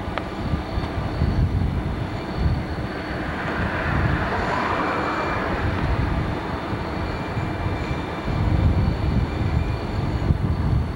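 Diesel locomotive running at low speed as it pulls a string of freight cars, a steady low rumble with a hiss that swells about halfway through.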